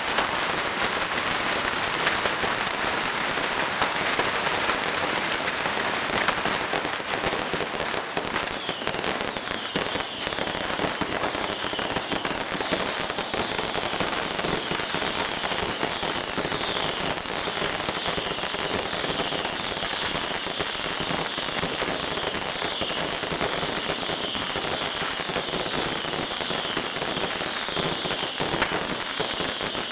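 Beehive rocket tower firing: hundreds of bottle rockets launching and bursting in a dense, unbroken crackle and hiss. From about nine seconds in, a high whistling joins and holds.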